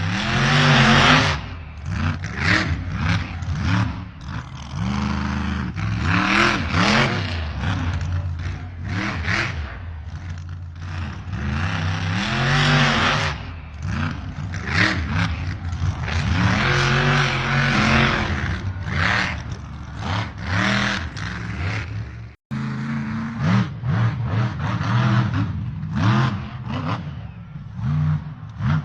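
Scale RC trucks' simulated diesel engine sounds revving up and down again and again, mixed with clatter, scraping and drive noise from the trucks working through mud. The sound breaks off briefly about two-thirds of the way through.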